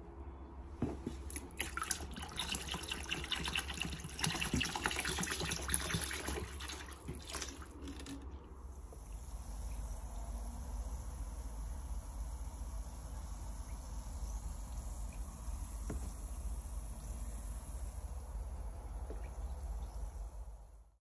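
Acetic acid poured from a plastic jug into a plastic tub of water, splashing and trickling for about seven seconds, then giving way to a steady high hiss.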